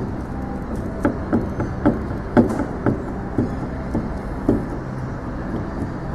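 Irregular short knocks and clunks, about ten in all, from a 2010 Ford Ranger's two-piece driveshaft being worked by hand at its centre joint. The knocking comes from play at the centre of the shaft, even though the centre nut is still done up. A steady low hum runs underneath.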